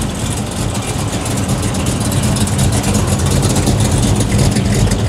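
Dodge Charger R/T's V8 burbling at low speed as the car rolls past, growing gradually louder.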